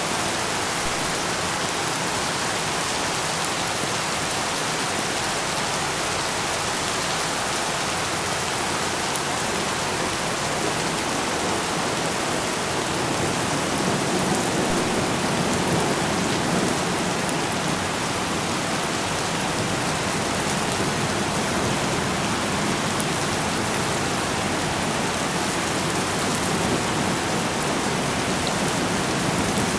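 Steady rain falling, an even unbroken hiss of many drops with no thunder or other events.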